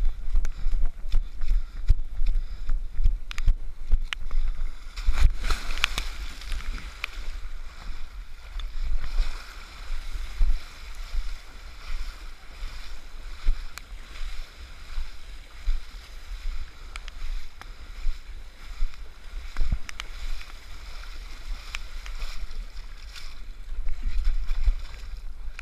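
Running footsteps and wind rumble on a body-worn action camera's microphone, then a big splash about five seconds in as the runner plunges into a muddy water pit. Sloshing and splashing follow as they wade through the water. Near the end come knocks and scraping as they scramble up a wet mud bank.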